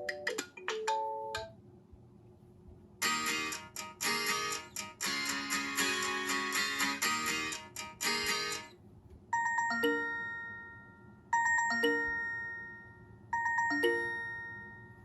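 OnePlus 6T stock ringtones played one after another. The end of one short melody, a busy musical ringtone lasting about six seconds, then a short chime ringtone that sounds three times, about two seconds apart, each chime ringing out.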